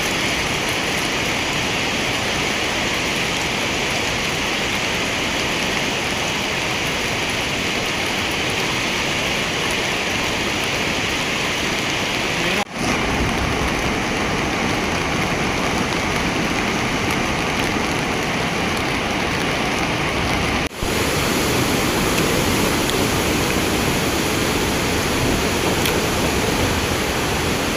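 The Chenab River in flood: fast-flowing floodwater making a steady, loud rushing noise. It is broken twice by brief drop-outs, and there is a little more low rumble after the second.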